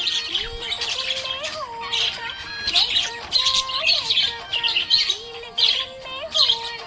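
Budgerigar chirping repeatedly in quick clusters of high notes, over background music.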